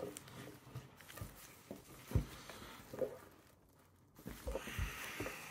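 Faint rustling and rubbing of stiff manila rope against work gloves as the strands of a rope fender are pulled tight, with a few soft knocks.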